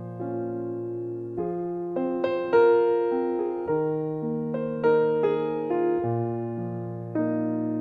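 Solo piano music: a slow melody over held bass notes, with a new note or chord struck about every half second to a second.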